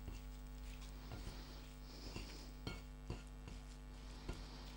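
Hands mixing grated raw potato and beetroot in a ceramic bowl: a faint, soft rustling of the shreds coming and going, with a few light clicks.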